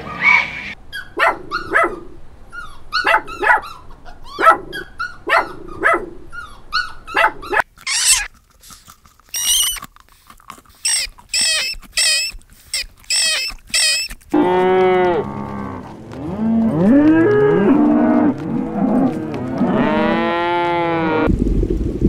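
A run of farm animal calls in three parts. First come short calls repeated about twice a second, then high-pitched cries, and from about fourteen seconds in, long drawn-out calls that rise and fall in pitch.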